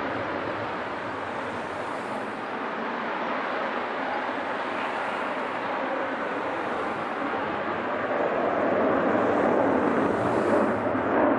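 A Dassault Mirage 2000N jet taking off with afterburner lit, its single SNECMA M53 turbofan giving a steady roar of jet noise that grows louder about eight seconds in as it climbs away.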